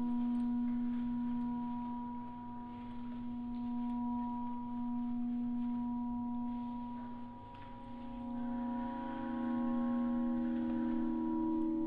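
Ambient drone score of several steady, ringing tones, singing-bowl-like. A little past seven seconds in the low tone shifts and fades briefly, and a higher layer of notes then swells in.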